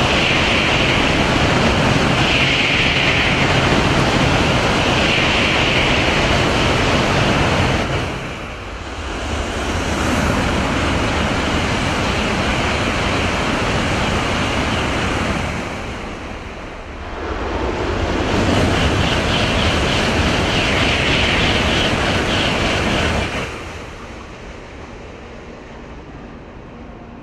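Shinkansen bullet trains passing through a station at full speed: a loud rushing of air and wheels, heard as three passes with short lulls between them, dropping to a quieter rush near the end.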